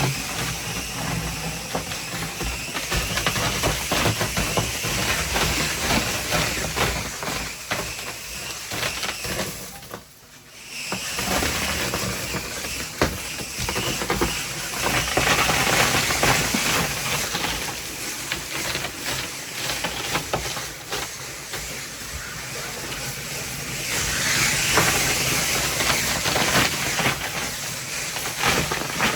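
Ice crusher running, with crushed ice pouring steadily into a fishing boat's hold; the noise drops out briefly about ten seconds in.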